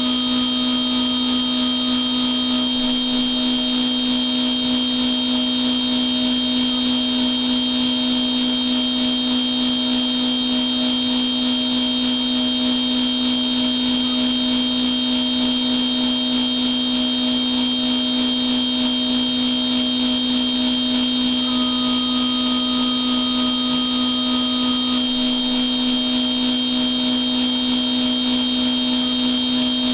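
CNC machine tool running its machining program dry, without coolant and without cutting metal: a steady low hum and a steady high whine from the running spindle and drives. A short extra tone joins in briefly at the start and again for about three seconds later on.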